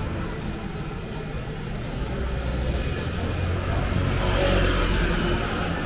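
A car driving past on a city street, its engine and tyre noise swelling to a peak about four seconds in and then easing off.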